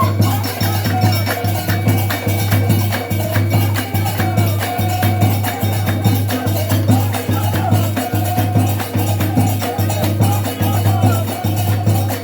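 Music with a fast, even percussion beat and a wavering melody line over a steady low drone.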